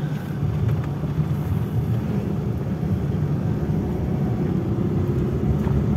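Daihatsu Charade Classy driving, heard from inside the cabin: a steady engine hum under road and tyre noise. There are no knocks or clunks from the suspension over the road, which sounds sound and solid.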